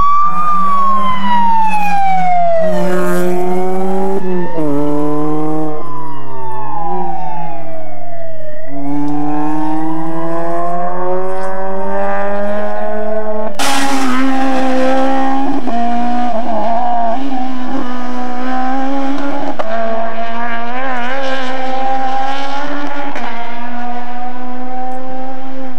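Rally car engine revving hard and lifting off again and again as it is driven along the stage, its pitch rising and falling with each gear change and corner. A sudden loud burst about fourteen seconds in, after which the engine holds a steadier, slightly wavering pitch.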